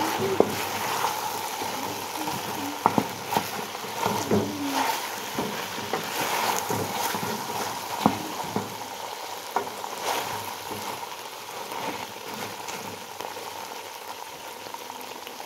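Beef chunks frying and sizzling in an aluminium pot as the sauce reduces, with a wooden spoon stirring them and knocking sharply against the pot now and then.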